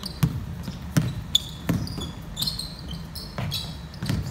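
Basketball bouncing on a wooden gym floor, a handful of hard bounces at an uneven pace, with sneakers squeaking on the court between them.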